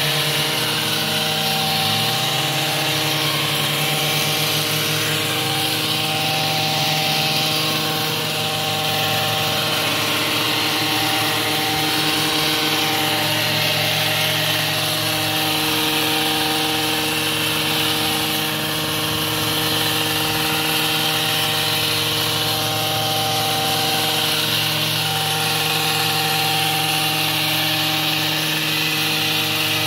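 Gas-powered hedge trimmer's small two-stroke engine running steadily at high speed as the blades cut through shrub foliage, its pitch wavering slightly now and then under load.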